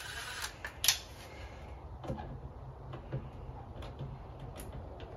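A few scattered clicks and light knocks from hardware being handled: the door latch and a screw being set in place on the door frame before the screw is driven. The loudest click comes about a second in.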